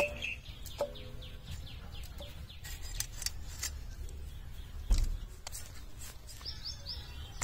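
Fish pieces dropped into a steel bowl, which rings briefly twice, then clicks and a heavy thud about five seconds in as a grass carp is cut on an upright boti blade. A bird chirps repeatedly in the background.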